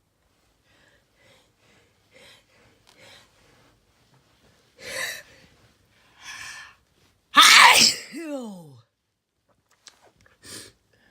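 A person sneezing once. A few quiet breaths and two gasping intakes build up, then one loud sneeze comes about seven seconds in, its voice falling in pitch as it trails off. A short breath follows near the end.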